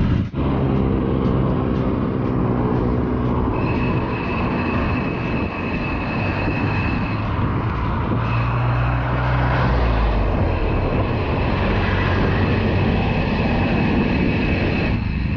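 Road traffic heard while riding along a city road: steady motor-vehicle engine and road noise. An engine hum is clear in the first few seconds, and a thin, steady high-pitched tone runs through much of the rest.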